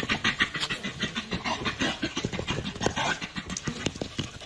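A dog panting rapidly in quick, even breaths, about six a second.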